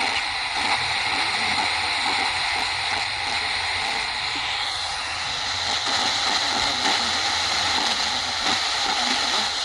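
Steady hiss of FM static from a Prunus J-211 pocket radio's speaker while it is tuned on the FM band in search of a weak station, with no clear station coming through.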